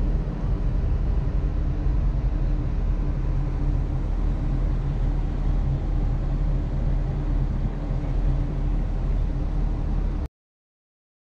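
A steady low rumble of vehicle-like noise that cuts off abruptly about ten seconds in.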